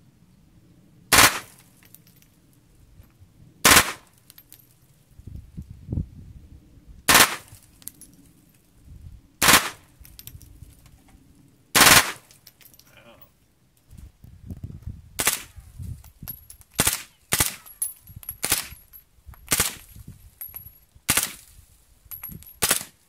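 Gunshots from an M16 rifle with a .22LR conversion: five loud, sharp single reports a couple of seconds apart. From about two-thirds of the way in, a quicker run of quieter shots follows, spaced under a second apart.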